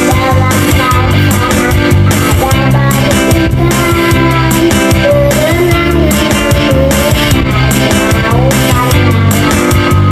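A young child singing an Indonesian children's song about the fish in the sea, over backing music with a steady beat.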